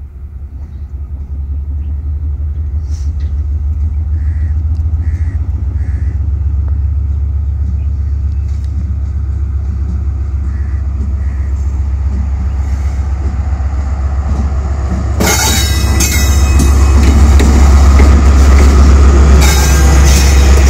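Diesel locomotive hauling an express train as it approaches and draws close: a deep engine rumble grows steadily louder. From about 15 seconds in, a loud rush of wheel and coach noise joins it as the train comes alongside.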